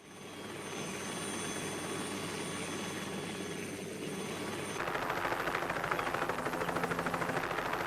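Railway locomotive running, fading in and growing steadily louder; about five seconds in it turns into a louder, rapid, even beat.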